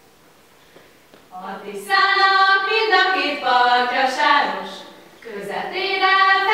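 Small group of young women singing a Hungarian folk song from Bihar in unison, unaccompanied. After a breath pause the voices come in about a second and a half in, with another short breath break near the end.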